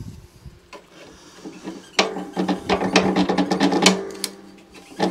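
Hand tools working on a lawnmower's deck and height-adjustment fittings: a dense run of rapid metallic clicking and scraping from about two seconds in until nearly four seconds, then a few sharp knocks near the end.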